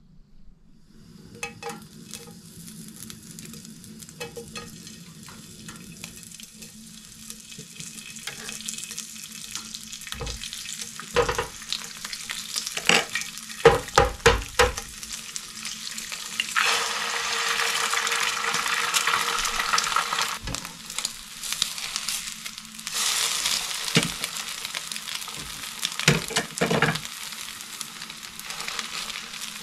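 Bacon sizzling in a non-stick frying pan on a portable butane stove. Around the halfway mark there is a run of sharp knocks and taps against the pan as an egg is cracked, followed by louder spells of sizzling.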